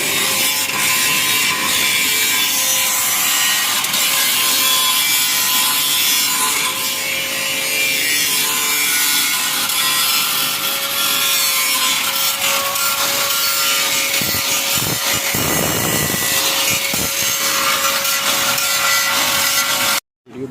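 A power tool grinding or cutting metal: a steady, loud, harsh abrasive noise over a constant motor whine, which cuts off abruptly near the end.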